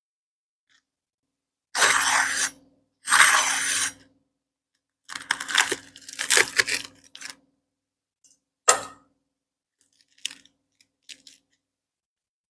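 Crisp apam balik (peanut pancake) crunching in several separate bursts, the loudest in the first half, then a few fainter short crunches near the end.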